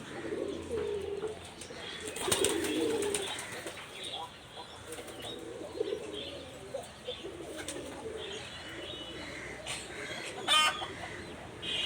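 Pigeons cooing, low and repeated. There is a brief rustle about two seconds in and a short, loud rattling burst near the end.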